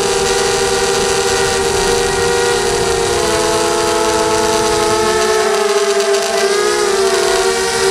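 Whine of a ZMR250 mini quadcopter's brushless motors and propellers, recorded by its onboard camera: several tones beating against one another over a hiss of air. From about three seconds in the tones dip and slide in pitch as the throttle changes, then settle back to steady near the end.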